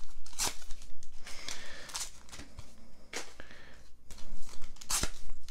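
Foil booster-pack wrapper crinkling and tearing as it is pulled open by hand, in several short rustling bursts.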